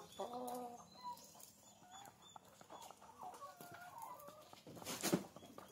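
Chickens clucking, a string of short calls, one more drawn out near the start. About five seconds in there is a brief loud rustle.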